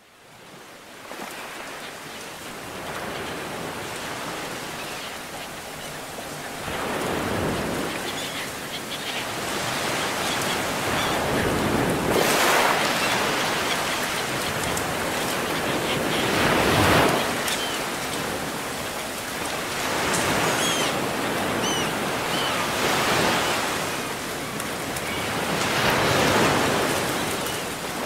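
Ocean surf breaking and washing up the shore, fading in from silence at the start, then swelling and falling back every four or five seconds. A few faint high chirps sound about three-quarters of the way through.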